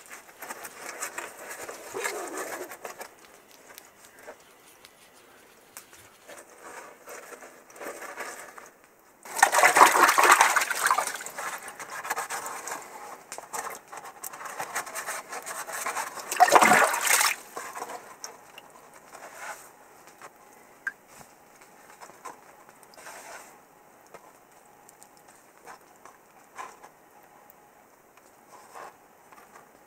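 Gloved hands sloshing and splashing in a pool of muddy water, feeling for and rinsing a dug-up Bakelite flask cup. The splashing comes in two louder bouts, about nine and sixteen seconds in, with quieter stirring in between.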